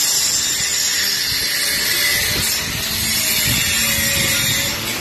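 A power tool running steadily in the shop, giving a loud, even hiss with a faint whine underneath. A few low thuds come around the middle.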